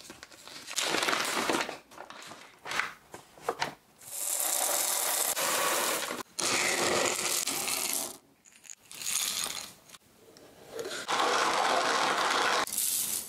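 A paper coffee bag crinkling, then whole coffee beans pouring from the bag into a glass jar in two long runs. Near the end a wooden hand-cranked coffee grinder grinds beans.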